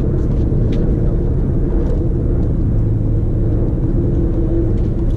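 Steady low rumble throughout, with a few faint sharp knocks from racquetball strikes.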